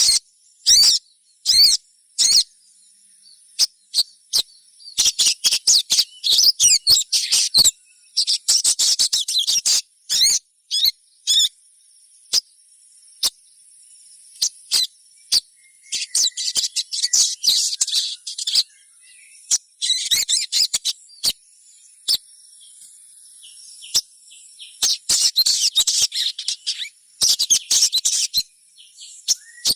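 Little spiderhunter (sogok ontong) calling: the chirping calls of a young bird, sharp high chirps given singly and in dense rapid bursts. A faint steady high-pitched tone runs behind them.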